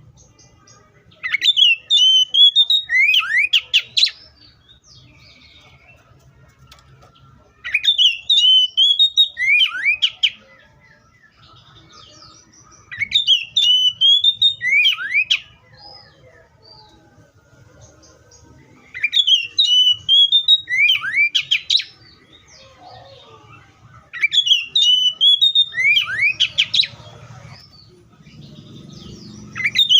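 Oriental magpie-robin singing: five loud phrases of quick, rising and falling whistled notes, each about two and a half seconds long and repeated roughly every six seconds.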